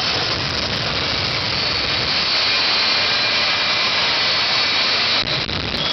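Jet engine of a jet-powered truck running at high power: a steady, loud rushing noise with a thin high whine on top, dipping briefly about five seconds in.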